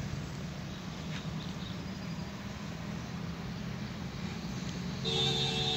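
Outdoor background noise with a steady low hum, and a brief pitched tone lasting about a second, starting about five seconds in.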